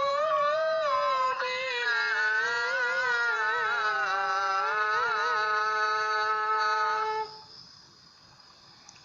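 A high voice sings one long, wavering, ornamented phrase of a do'a, sliding slowly down in pitch, and breaks off about seven seconds in.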